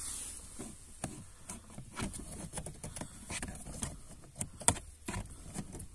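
Scattered soft clicks, taps and rustles of hands pushing a scan tool's plastic connector onto a car's OBD2 port under the dashboard, with a sharper knock a little after the middle.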